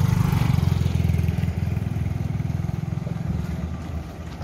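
Small motorcycle engine running as it passes close by, loudest at first and then slowly fading away.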